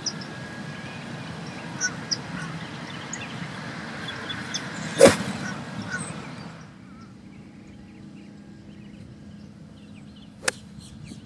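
An iron strikes a golf ball with a sharp click about five seconds in, and a second, quieter club-on-ball strike comes near the end. Faint bird calls sound in the background.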